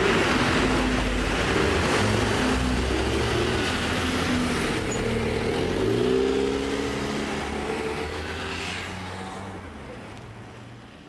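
Road traffic passing on a wet street: a car, then a single-decker bus driving by with its engine note rising as it pulls past about halfway through. The sound fades away near the end.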